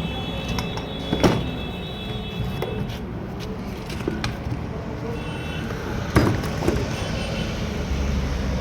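A few sharp metallic clicks and knocks from starter motor parts being handled, one about a second in and another around six seconds in, over a steady low hum.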